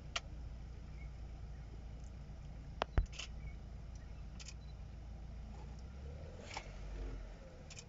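Low steady rumble of an idling vehicle engine, with a few small clicks and one sharp knock about three seconds in.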